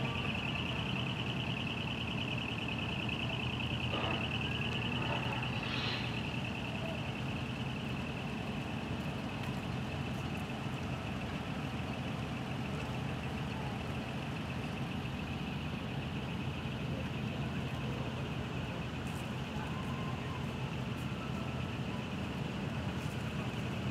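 Large diesel truck engine idling steadily, a constant low rumble with a steady high-pitched whine over it.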